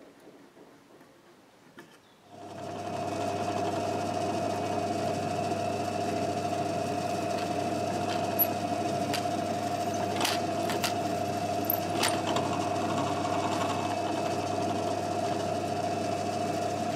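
Drill press motor running steadily with an even hum while drilling holes into a wooden block, with a few small clicks. It starts about two seconds in, after a near-quiet moment with faint ticks.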